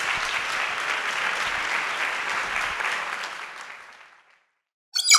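Audience applauding, fading out about three to four seconds in. Near the end, a sudden bright chime strikes and rings on.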